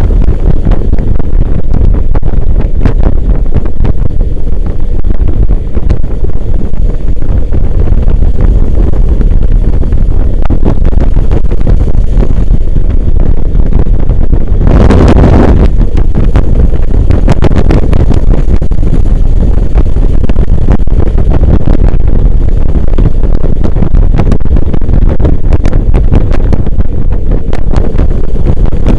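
Heavy wind buffeting on the microphone, a loud steady rumble with a brief louder gust about halfway through.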